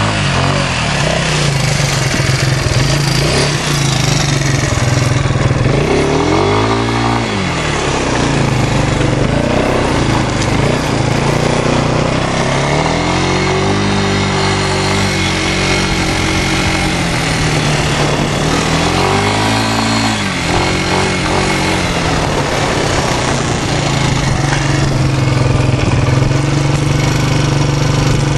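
Yamaha Breeze ATV's small single-cylinder four-stroke engine running under way, its revs climbing and falling three times, about six, thirteen and nineteen seconds in, over a steady rushing noise.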